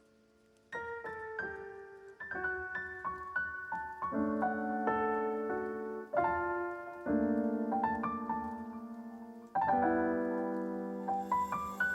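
Background piano music: single notes and chords struck one after another, starting just under a second in.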